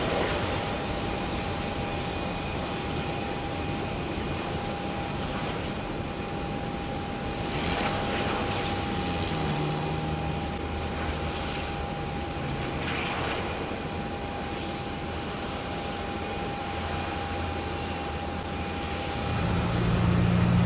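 Jet engines of an Airbus A380-800, its four Rolls-Royce Trent 900 turbofans, running as the airliner moves along the runway: a steady jet noise with a thin high whine through it. A deeper rumble comes in near the end.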